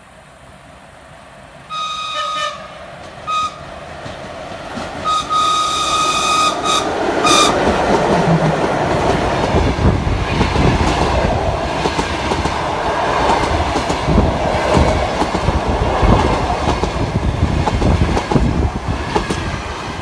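ChS7 electric locomotive sounding its high-pitched signal in four blasts: a short one, a very short one, one of about two seconds and a last short one. Then the train passes close, its wheels clattering over the rail joints in a loud, heavy rumble.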